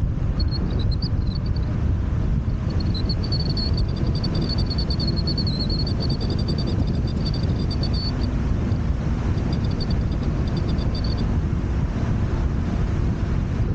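Steady low rumble of wind on the microphone and road noise while riding a Wolf Warrior 11+ electric scooter. A thin high whine wavers and breaks up over most of it, then stops about three seconds before the end.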